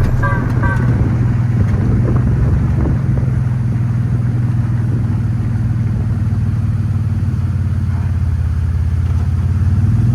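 Steady low rumble of the Willys Jeep driving, its engine and road noise running evenly. The last notes of electronic music fade out in the first second.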